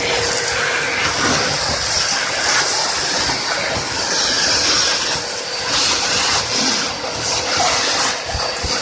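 Twin-motor 2.2 kW industrial vacuum cleaner running: a steady motor whine under loud rushing air, the hiss swelling and easing.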